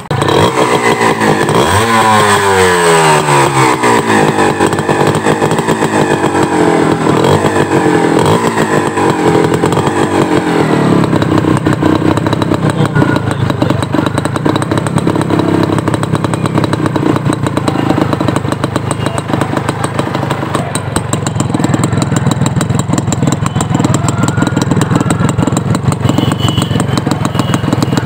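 Small 100 cc Yamaha motorcycle engine starting, blipped once and falling back in pitch over several seconds, then idling steadily, heard close to the exhaust outlet.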